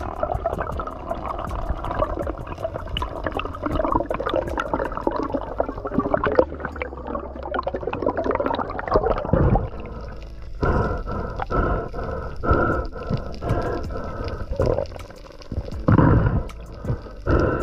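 Muffled underwater gurgling and bubbling picked up by a camera held below the surface, with a patter of faint clicks. In the second half a series of short pitched pulses comes through.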